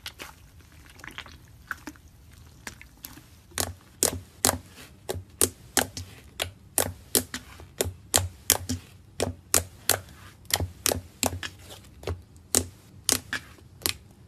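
White fluffy slime poked and pressed with fingertips, trapped air popping out in sharp, loud clicks about two a second. The first few seconds hold only faint squishing and small clicks.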